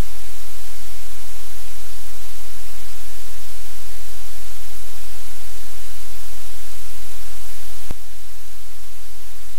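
Steady loud electrical hum with constant hiss from a live-cam audio feed, with one sharp click about eight seconds in as the feed switches cameras.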